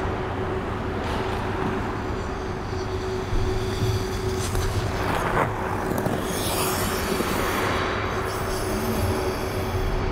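Ice-rink background noise: a steady rumble with a constant hum through it. A brief louder swell comes about five seconds in, then a wider rush of hiss a couple of seconds later.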